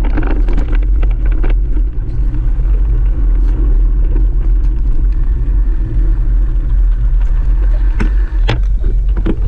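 Low rumble of wind buffeting and jolting on a bike-mounted camera's microphone as the mountain bike rolls over a rough dirt track, with scattered rattles and two sharp knocks near the end.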